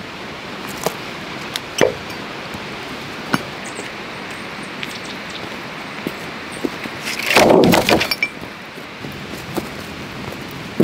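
Dry dead wood being handled on stony ground: scattered sharp clicks and knocks, then a louder brief clatter of wood knocking and scraping about seven seconds in, as a dead log is set down among others.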